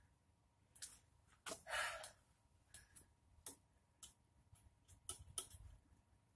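Faint, sparse clicks and rustles of hands handling a petrol lawnmower engine around the spark plug, with one louder short rustle about a second and a half in.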